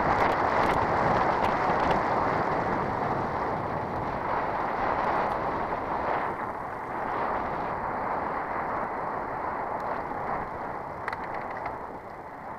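Steady rushing noise of a road bike riding on a dirt and gravel road: tyres rolling over gravel and air rushing past the camera microphone, with a few faint small clicks. It slowly gets quieter.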